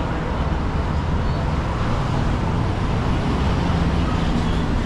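Steady city street traffic noise: the low, continuous sound of vehicle engines and tyres on the road.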